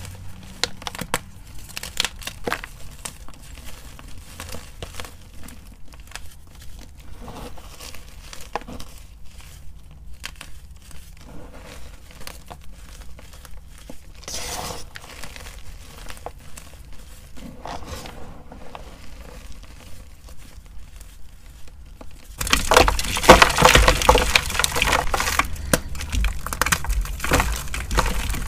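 Fingers crumbling and rubbing loose powdery gym chalk, a soft, dense crackling. About 22 seconds in it gives way to much louder crunching as chunks of dyed gym chalk are crushed by hand.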